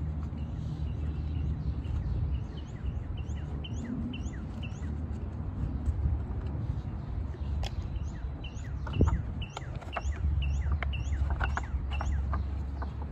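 A bird chirping quickly and over and over, about two or three short chirps a second, above a steady low rumble. A few sharp clicks come in the second half, the loudest about nine seconds in.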